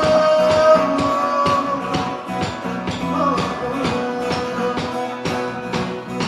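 A live band playing a rock-style song with guitar over a steady drum beat, and no words sung.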